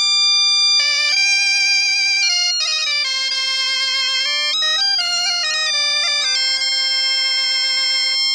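Biniou kozh bagpipe and bombarde playing a Breton mountain-style melody together over the biniou's steady drone. The bombarde joins the held biniou note about a second in.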